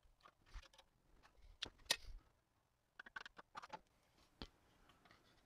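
Scattered metallic clicks and knocks from a box-and-pan finger brake and a thin sheet-metal piece being folded and lifted out: a sharper knock about two seconds in and a quick run of clicks around three seconds.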